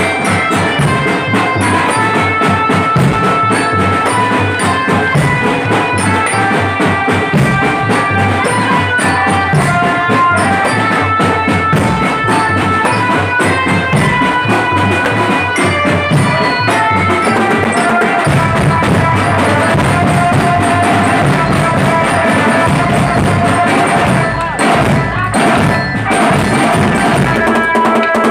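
Marching drum band playing: bass, snare and tenor drums keep a steady driving beat under a melody of held notes on keyed instruments. The drumming thins briefly near the end.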